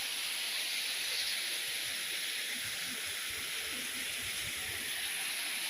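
Waterfall rushing, a steady even hiss of falling water.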